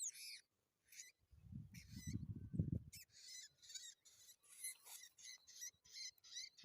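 Small songbirds chirping, quick high calls repeated over and over. A low rumble runs briefly from about a second and a half in.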